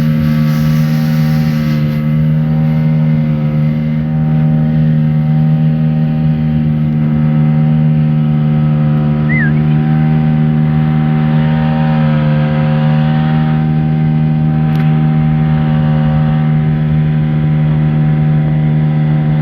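An engine running at a steady speed: a loud, even drone with a constant low pitch and only a slight shift in pitch about halfway through.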